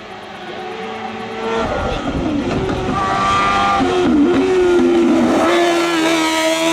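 Hill-climb race car engine under hard acceleration, growing louder as it approaches, its note dropping and climbing again several times through gear changes.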